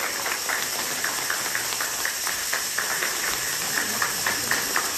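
Audience applauding, with one pair of hands clapping close by at about four claps a second over the crowd's steady clapping.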